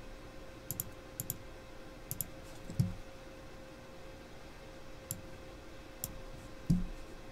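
Computer mouse and keyboard clicks, a dozen or so sharp clicks, several in quick pairs like double-clicks, with a couple of dull knocks and a faint steady hum beneath.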